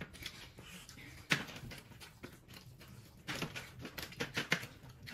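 Close-up eating sounds as curry and rice are eaten by hand from steel platters: scattered wet smacks and clicks of chewing, with a sharper click about a second in and a quick run of them a little past three seconds.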